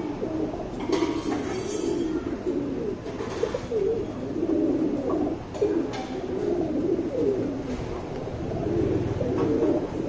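Domestic pigeons cooing continuously, a low wavering murmur of many overlapping coos.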